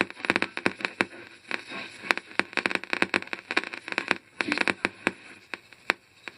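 Radio static: irregular crackling clicks, some in quick clusters, over a hiss.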